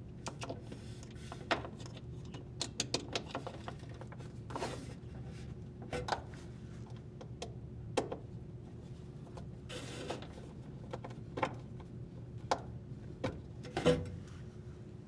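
Small clicks and scrapes of screws being threaded and driven with a screwdriver into the plastic tabs of a washer's sensor hose and drain bellow connector, irregular and spread out, with the loudest click near the end. A faint steady hum sits under it.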